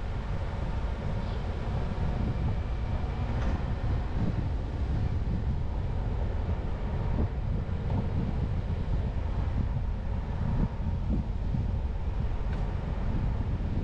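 Steady low rumble of a car driving along a street: road and engine noise, with wind on the microphone.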